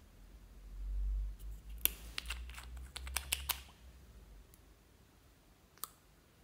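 Clear slime being worked by hand: a low rumble of handling, then a quick run of sharp clicks and pops, with one more click near the end.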